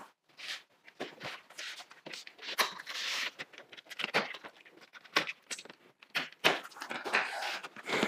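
Cardboard packaging being handled and opened: scissors cutting packing tape, with irregular rustles, scrapes and clicks of the box and its flaps, and a longer scrape about three seconds in.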